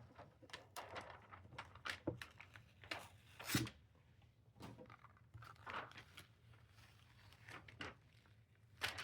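Faint rustling and crinkling of rhinestone transfer tape and template sheet being handled and laid down, with scattered short clicks; the loudest stroke comes about three and a half seconds in, another near the end.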